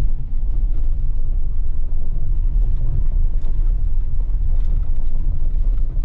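Steady low rumble of a 2021 Chevy Colorado pickup on the move, heard from inside the cab: engine and mud-terrain tyre noise.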